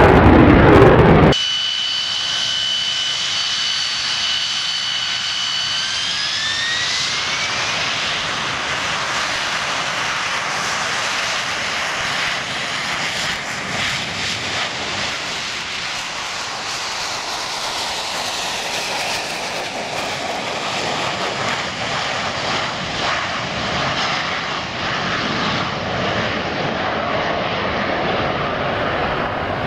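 A loud jet passing in the first second, then AV-8B Harrier II jets' Pegasus engines: a steady high whine that rises in pitch between about six and eight seconds in, giving way to a continuous broad jet rush as the Harriers fly low toward the runway.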